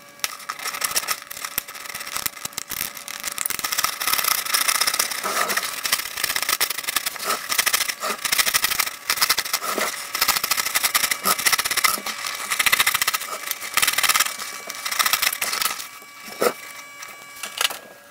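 Craft knife cutting around the dust cap of an Altec Lansing 846B woofer, played back sped up: a dense run of fast scratching and clicking, thinning out near the end.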